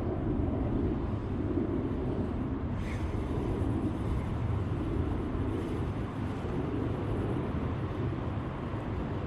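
Steady rushing outdoor noise of river flow and wind, with one short click about three seconds in.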